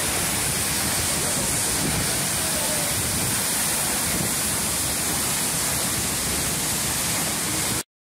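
Tall waterfall plunging down a rock face, a steady rush of falling water that cuts off suddenly near the end.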